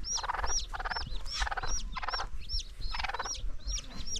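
A bantam hen clucking in short bursts of quick clucks about twice a second, over the steady high peeping of her chicks.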